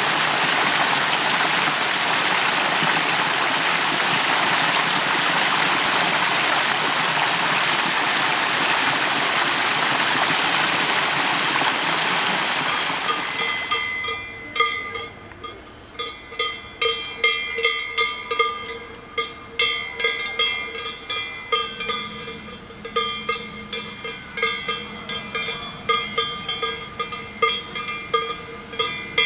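Steady rushing of a stream for the first 13 seconds or so. It then fades out and gives way to irregular ringing, bell-like tones at a few fixed pitches, struck several times a second.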